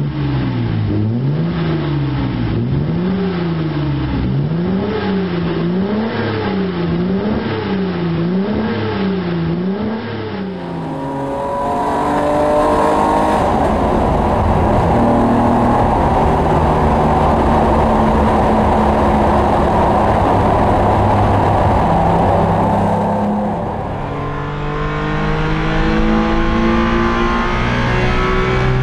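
Nissan Skyline C10 Hakosuka straight-six revved in about eight quick blips, the pitch rising and falling roughly once a second. It then pulls hard and runs loud and steady through a tunnel, then accelerates with rising pitch, heard from inside the cabin on track.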